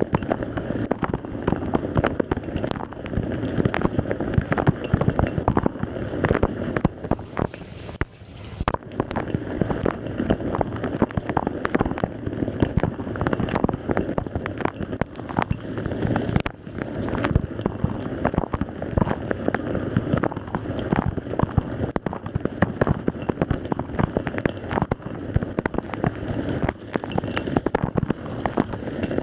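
Water spraying and splashing inside a Samsung dishwasher tub during a wash cycle, a dense, steady patter of droplets. A few brief high whines come and go.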